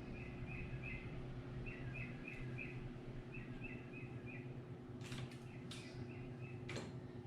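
A small bird chirping in the background in short repeated runs of three to five notes, over a low steady hum. Several sharp clicks come near the end.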